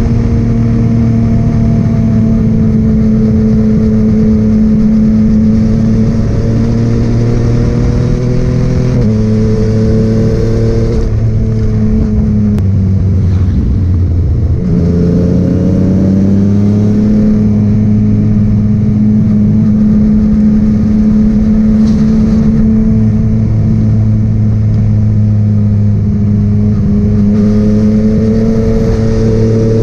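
Yamaha MT-09's three-cylinder engine with a Scorpion full-system exhaust, running at steady cruising revs on the move. The pitch drops about nine seconds in and falls further as the throttle eases around the middle. It then climbs back and holds steady.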